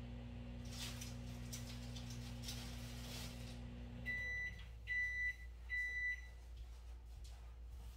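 Microwave oven running with a steady low hum that stops about four seconds in, followed by three short high beeps signalling the end of the heating cycle.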